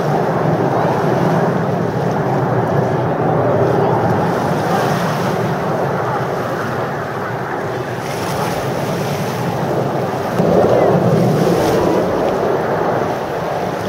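Distant jet aircraft engines giving a steady rushing roar, which swells about ten and a half seconds in.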